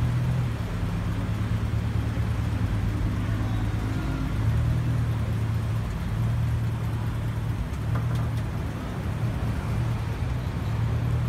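Engine of a classic white Ford Mustang fastback with Shelby GT350 badging idling steadily, a low even note with slight swells.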